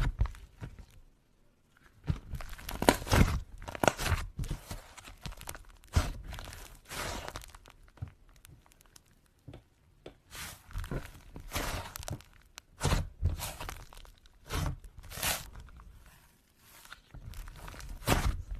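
Fluffy slime being stretched, squeezed and pulled apart by hand, giving irregular bursts of sticky crackling and tearing sounds with short pauses between them.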